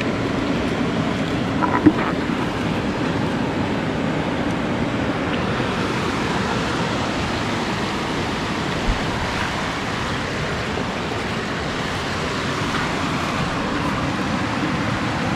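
Stream water running steadily, an even rushing sound, with a brief knock about two seconds in.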